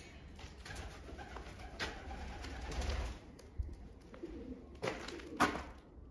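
Pigeons cooing, with a low rumble in the first half and a few sharp knocks, the loudest a little before the end.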